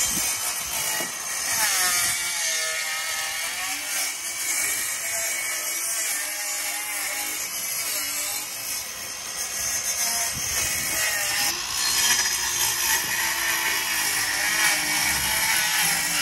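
Handheld cordless power tool cutting into old wooden wall sheathing, running continuously with its pitch rising and falling as the blade loads in the wood.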